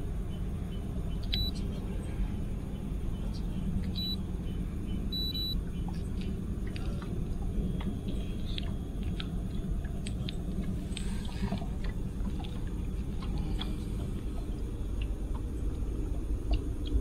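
Steady low rumble with scattered faint clicks, broken by three short, high electronic beeps in the first six seconds, the last one a little longer.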